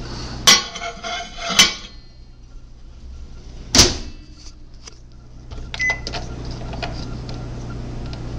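Microwave oven being shut and set: a few sharp knocks and clatters in the first four seconds, the loudest near four seconds, then a short keypad beep about six seconds in over a steady low hum.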